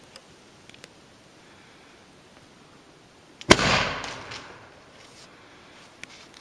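Hairspray-fuelled potato cannon (spud gun) firing once, about three and a half seconds in: a sharp boom with a whooshing tail that dies away over about a second.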